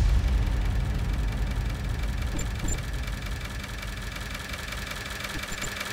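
A machine running steadily with a fast, even mechanical rattle, slowly fading out.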